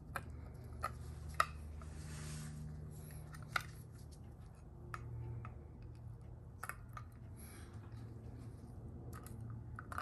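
Scattered light clicks and taps of a plastic fog-light housing and its mounting bracket being handled and fitted together, with a soft rustle about two seconds in, over a low steady hum.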